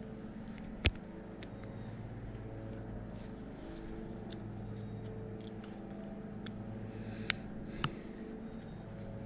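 Plastic fishing bobber being slid up the line by hand, giving a few sharp clicks: one about a second in and two close together near the end, with fainter ticks between. Under them runs a low, steady mechanical hum.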